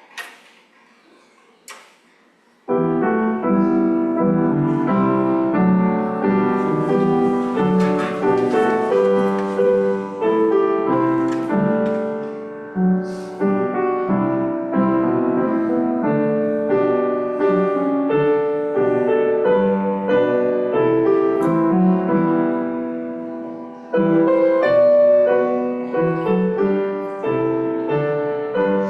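Piano playing through a hymn tune as an introduction before the singing. It starts about three seconds in, after a few faint clicks, with a short break between phrases near the end.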